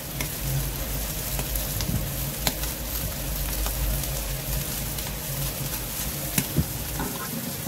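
Salmon steaks sizzling on a grill grate over open flames, with scattered short pops and crackles over a steady low rumble.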